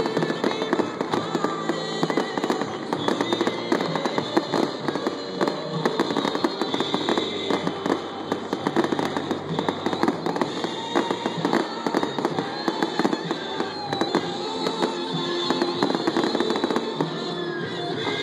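Aerial fireworks display: a continuous, rapid barrage of shell bursts and crackling, with music playing throughout.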